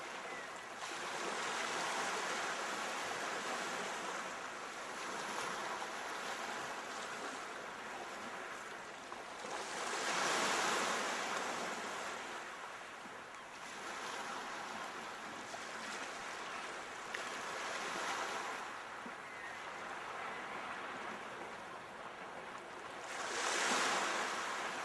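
Sea waves breaking and washing on a shore: a continuous rushing surf that rises and falls, with two bigger waves swelling in about ten seconds in and again near the end.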